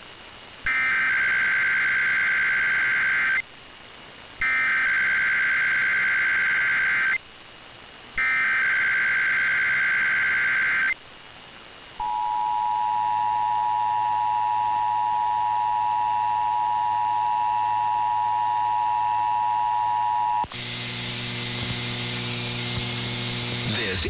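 Emergency Alert System test heard over AM radio: three bursts of SAME header data tones, each almost three seconds long with about a second's gap between them, then the two-tone attention signal held steady for about eight seconds. The tone cuts off abruptly, leaving radio hiss with a low hum.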